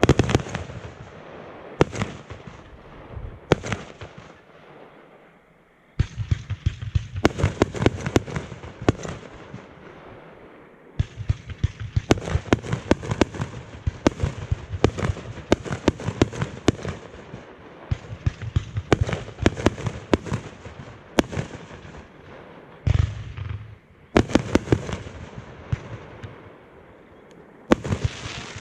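Fireworks going off in rapid volleys of sharp bangs and crackling breaks, with new volleys starting abruptly several times.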